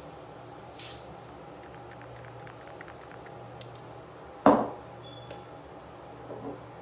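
Faint steady room hum with a few light clicks of small items being handled, then one sharp knock about four and a half seconds in, a hard object set down on a hard surface, and a softer knock near the end.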